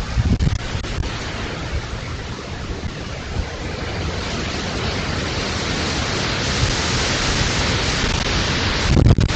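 Wind blowing hard through the trees: a steady rushing hiss, with low rumbling buffets on the microphone at the start and again near the end.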